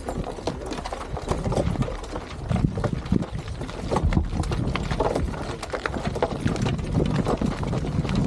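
Roman legionary reenactors marching in formation on a gravel path: many footsteps crunching and knocking, with armour and shields clanking as they move.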